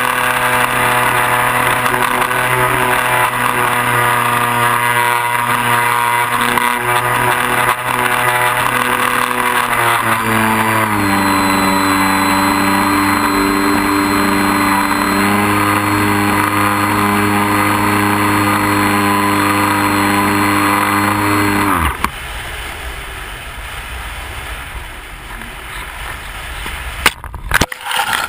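Electric motor and propeller of a Multiplex Xeno RC plane running steadily with a high whine, dropping to a lower pitch about ten seconds in, then shutting off with a falling pitch about two-thirds of the way through. Airflow noise follows as the plane glides, then a few sharp cracks near the end as it crashes into dry brush.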